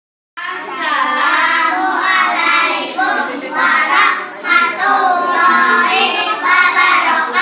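A group of young children singing together, one voice through a microphone, starting after a brief moment of silence.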